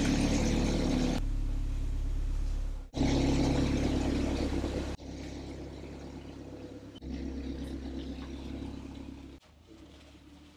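Toyota Lite Ace van's engine running steadily as the van is driven, the level jumping abruptly several times and dropping low near the end.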